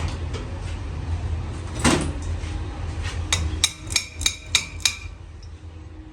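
Hammer striking metal: one heavier blow, then a run of six quick ringing blows about three a second, over a low steady hum.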